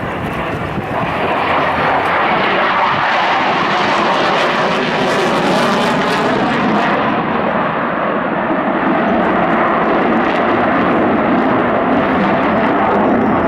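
A Boeing F/A-18E/F Super Hornet's twin General Electric F414 turbofan engines running loud as the jet flies by. The noise swells about a second in and then holds steady, and its sharp high hiss fades about seven seconds in.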